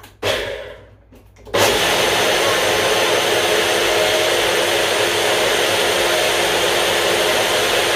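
A short noise near the start, then about a second and a half in, a countertop blender switches on and runs loud and steady at full speed, blending fruit and water into a smoothie.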